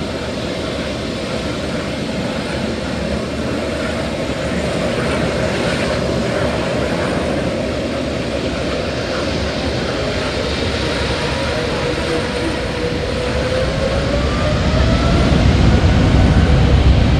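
Jet airliner engines running: a steady roar with a whining tone that dips and then rises in pitch, and a deep rumble that builds and grows louder over the last few seconds.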